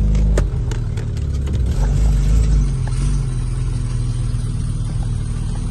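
Four-wheel-drive vehicle's engine pulling steadily over a rough off-road track, with a few knocks and rattles at the start; the engine note drops about half a second in, then holds steady.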